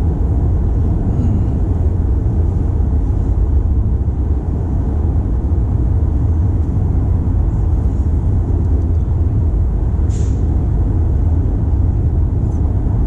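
Toyota C-HR on the move: a steady, loud low rumble of road, tyre and engine noise while driving, with a brief click about ten seconds in.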